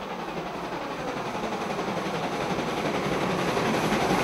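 Bavarian S 3/6 four-cylinder compound steam locomotive approaching with its train, its exhaust and running noise growing steadily louder as it draws near.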